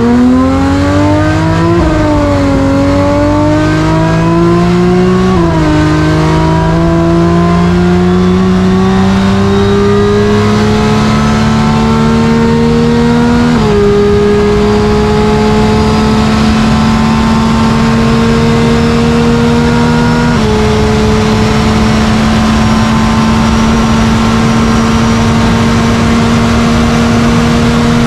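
Homemade 5-litre V12 engine of a land speed race car at full throttle, heard from the cockpit: its pitch climbs and drops back at four upshifts, then holds steady near 9,400 rpm.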